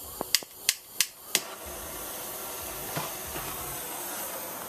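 Handheld propane torch being lit: a quick run of about five sharp clicks, then the steady hiss of the gas flame burning.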